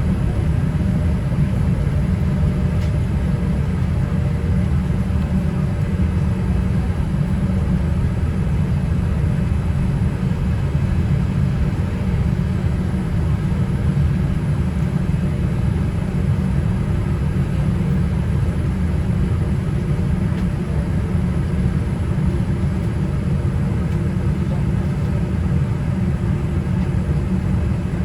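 Steady low rumble of a Boeing 787-8 airliner with its engines running, heard from inside the passenger cabin.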